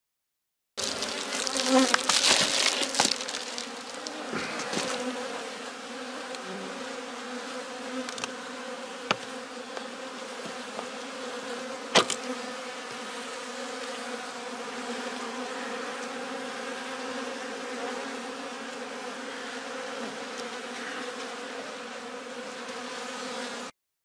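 Honeybees buzzing steadily at the hive entrance, a continuous hum. In the first few seconds it is overlaid by loud crinkling of silver bubble wrap being pulled off the entrance, and a couple of sharp clicks come near the middle.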